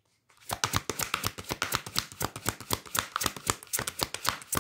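A deck of cards being shuffled by hand, with a quick run of dry card-on-card clicks that starts about half a second in.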